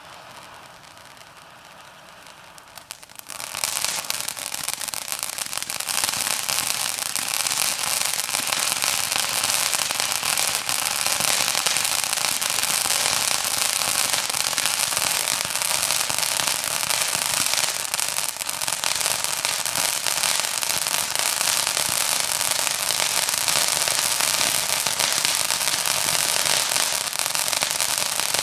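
Brothers 'Dark Science' firework fountain burning: about three seconds of quiet hiss, then, about three and a half seconds in, a dense steady crackle of sparks starts and keeps on.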